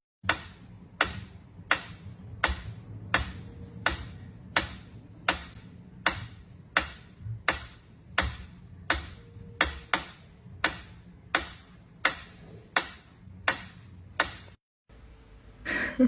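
Sharp taps or clicks repeating at an even pace, about three every two seconds, some twenty in all. They stop abruptly, and a short, louder sound follows near the end.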